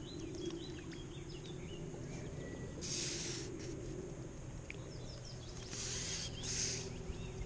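Small birds chirping over a steady outdoor background, with three short hissing bursts, one about three seconds in and two close together near the end.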